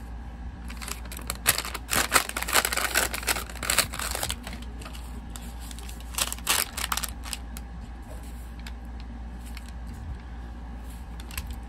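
Packaging crinkling and rustling as items are handled, in clusters of bursts from about one to four seconds in and again around six to seven seconds, over a low steady hum.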